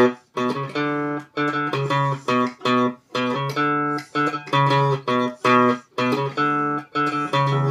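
Electric guitar played straight into an amplifier with no overdrive pedal, the amp set for a blues tone with a little gain and treble: a repeating riff of short, choppy notes and chords with brief gaps between them, about two a second.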